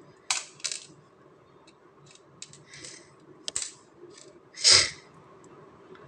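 Hands handling small electronic parts: a run of small clicks and light clinks, with one louder, longer noisy burst a little before the end.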